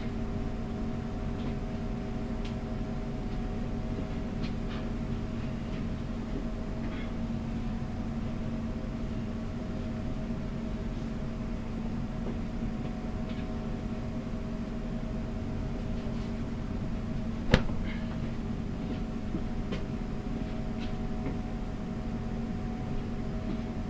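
A steady machine hum with several held tones fills the kitchen. Faint soft rustles and light taps come as towels are laid over the clay rice pot, and one sharp click sounds about three-quarters of the way through.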